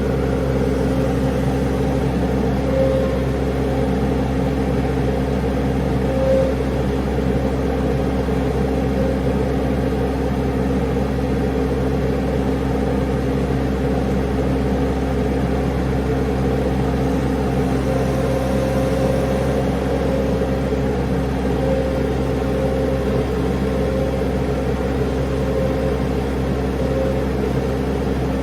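Engine running steadily at a constant speed, with no revving or change in pitch.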